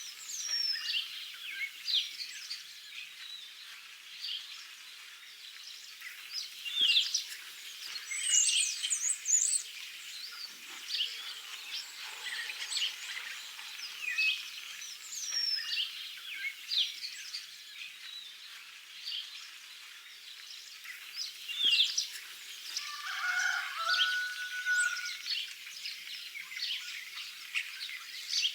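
Small songbirds chirping and singing, many short quick calls overlapping throughout, over a light background hiss. A short lower sound about two-thirds of the way through.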